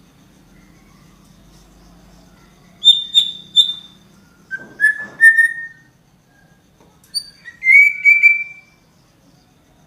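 A songbird singing three short phrases of clear, whistled notes a few seconds apart; the first phrase is high-pitched, the next two lower.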